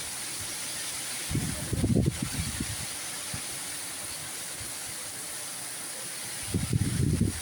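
Heavy rain falling, a steady even hiss. Low, uneven rumbling comes in twice, about a second and a half in and again near the end.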